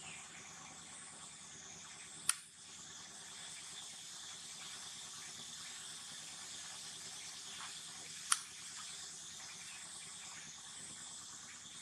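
Steady high outdoor background hiss, with two sharp clicks, about two seconds in and about eight seconds in.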